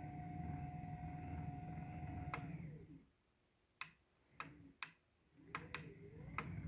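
Electric sit-stand desk's lifting motor running with a steady hum, stopping with a click about two and a half seconds in as the desk reaches its set height. Then a series of sharp clicks, about six, from buttons being pressed on the desk's control panel while the next height is set.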